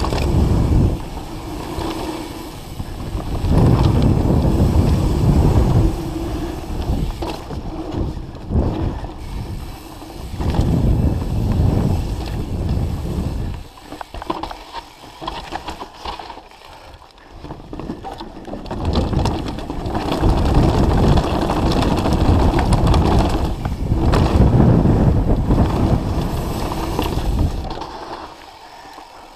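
Wind buffeting an action camera's microphone while a mountain bike rattles and rumbles over a dirt trail on a fast downhill run, with many small knocks from bumps and roots. The noise surges and eases with speed, dropping off about halfway through and again near the end.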